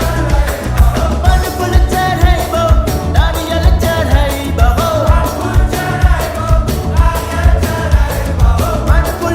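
Indian devotional song to Shiva: singing in a winding melody over a heavy, steady bass beat.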